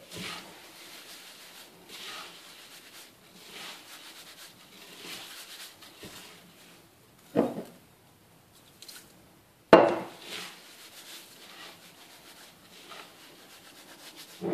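Gloved hands rubbing and tossing damp couscous grains in an earthenware dish: soft swishing rustles about every second and a half, as the grains are worked loose while water is mixed in. Past the middle come two louder knocks about two seconds apart, with a brief lull between.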